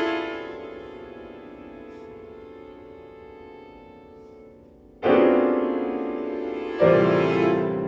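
Contemporary chamber-ensemble music led by piano: a held chord fades away over several seconds, then two loud new chords are struck, about five and seven seconds in, and ring on.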